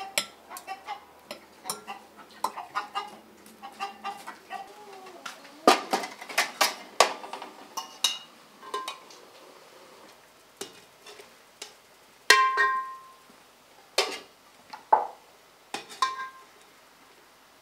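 Chickens clucking with short, separate calls, mixed with sharp clinks of a utensil against a metal basin, loudest in a quick run of clinks about six seconds in.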